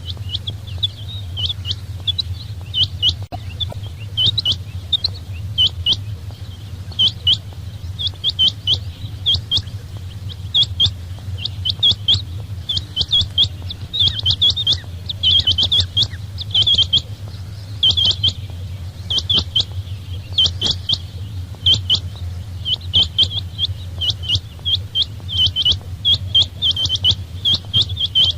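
Quail (batair) calling in quick clusters of short, high chirps, repeated about every second, over a steady low hum.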